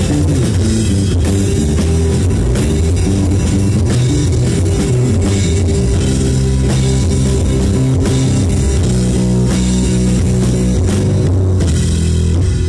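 A live rock band is playing, with the electric bass guitar loud and up front over the drum kit. The low bass notes step from pitch to pitch.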